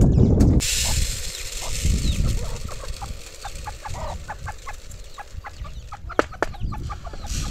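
Chickens clucking in many short, repeated calls, over a low rumble.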